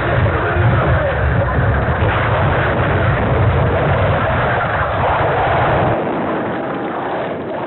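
Cockpit voice recorder of a Tupolev Tu-154M just after a mid-air collision: a loud, continuous rushing noise with a heavy low rumble as the airframe breaks up. About six seconds in, the low rumble drops away and a thinner rushing noise goes on. The sound is cut off above a fairly low pitch, as recorder audio is.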